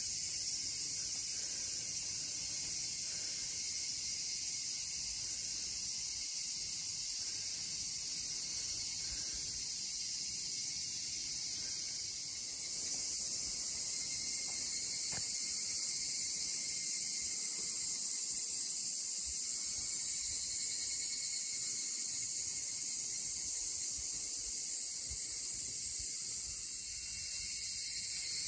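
Steady, high-pitched shrilling of cicadas, growing louder about twelve seconds in.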